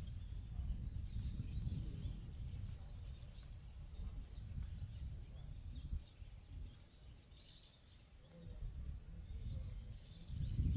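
Low, gusting rumble of wind on the microphone, easing off for a few seconds past the middle, with faint scattered bird chirps.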